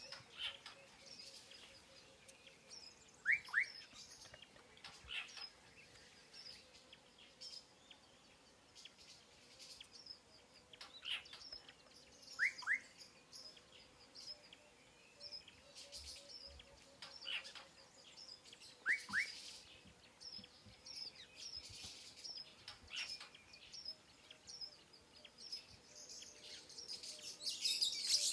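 Wild birds chirping and calling in open savanna, with a call of two quick rising whistles repeated several times among steady high twittering.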